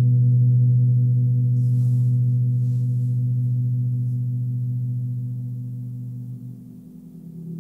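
Large hanging gong ringing on: a steady low hum with several higher overtones, slowly fading and dying away near the end. A faint rustle sounds about two seconds in.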